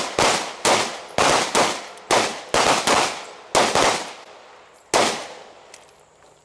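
Handguns fired by several shooters on a firing line: an uneven string of about ten sharp pistol shots that thins out and stops about five seconds in.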